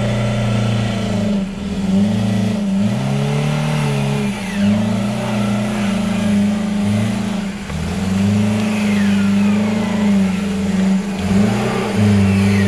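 Off-road 4x4 vehicle engine revving, its pitch holding, then dipping and climbing back several times as the throttle is worked.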